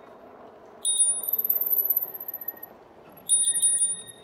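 Bicycle bell rung in two bursts of rapid dings, about a second in and again near the end, over the low noise of the ride.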